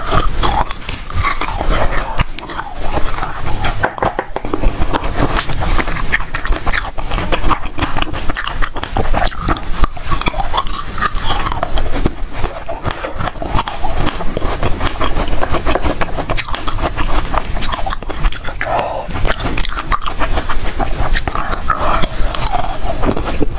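Close-miked crunching and chewing of frozen cherries: a dense, unbroken run of crisp crackles and bites.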